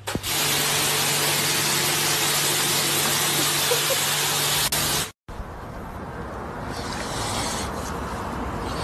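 A jet of water from a hose spraying against a glass sliding door: a steady loud hiss that stops abruptly about five seconds in, followed by quieter steady outdoor noise.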